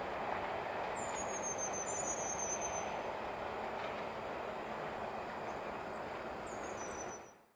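Steady outdoor rushing background noise, with birds giving thin, high chirps that slide down in pitch, several times; all of it fades out near the end.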